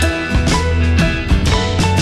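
Background music with a steady beat, sustained bass notes and pitched melody notes.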